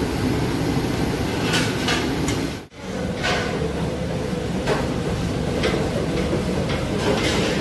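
Commercial kitchen noise: a steady, loud rush of the extraction hood and gas burners, with a few sharp clanks of metal utensils against large steel pots. A momentary dropout comes at a cut about two and a half seconds in.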